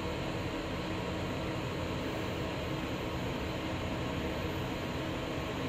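Mitsubishi Nexiez-MRL traction elevator car travelling upward at about 1 m/s, heard from inside the car: a steady, even hum and rush of the ride.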